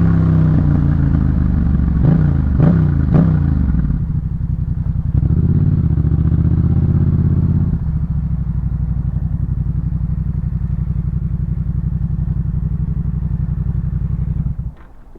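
Yamaha MT-07's 689 cc parallel-twin engine through a Jeskap K4 full aftermarket exhaust, its pitch shifting with two sharp pops about three seconds in, then settling to a steady, loud idle. The engine cuts off abruptly near the end.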